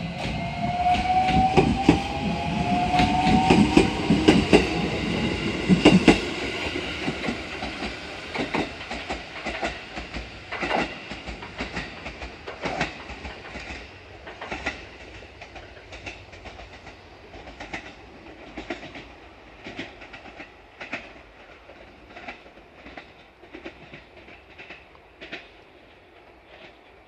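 Train running past, wheels clacking over rail joints, with a rising whine in the first few seconds. The clacking then thins out and fades as the train moves away.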